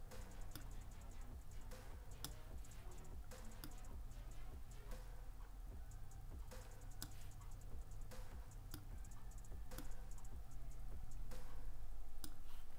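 Computer mouse clicking at irregular intervals, about one or two clicks a second, over a faint low hum.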